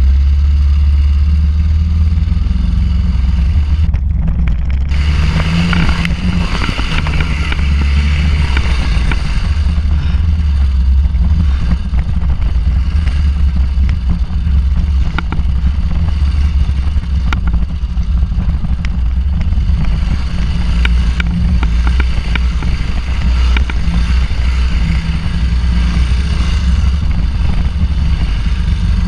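Suzuki DR800 Big's large single-cylinder engine running as the bike is ridden over a dirt motocross track, the throttle opening and closing, with frequent knocks and rattles from the rough ground.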